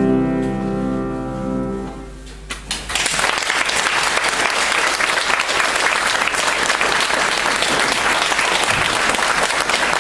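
A grand piano's final chord held and dying away, then audience applause that starts about three seconds in and carries on at an even level.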